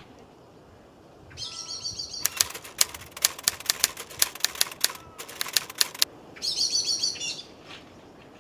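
Typewriter sound effect: a run of sharp key clacks, about five a second with a brief pause partway through, set between two short fluttering rattles.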